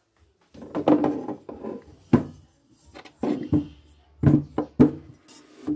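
Handling noise: irregular knocks, taps and rubbing as objects are moved about on a wooden surface, with one sharp click about two seconds in and a cluster of knocks near the end.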